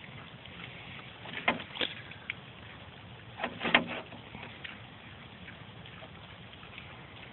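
Goat eating pumpkin out of a galvanized metal tub, with a few sharp crunches and knocks in two clusters, about a second and a half in and again near four seconds, over faint steady background noise.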